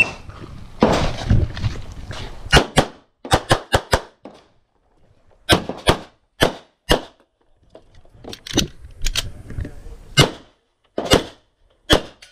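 Pistol fired in a timed practical-shooting stage: about seventeen sharp shots in quick strings of two to four, the first about two and a half seconds in, with short pauses between the strings.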